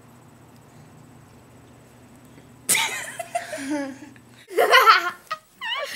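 Girls laughing loudly in several bouts, starting suddenly about halfway through, over a low steady hum.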